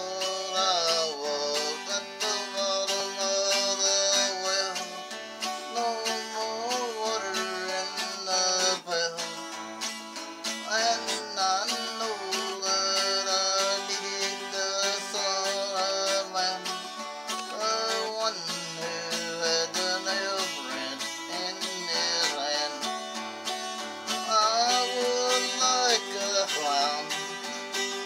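Acoustic guitar strummed with a pick in a steady country-style rhythm, a man's voice carrying a melody over it.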